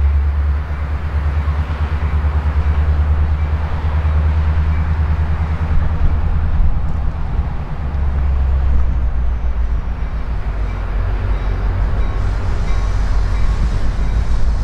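Metra commuter train's diesel locomotive approaching, its engine a steady low rumble.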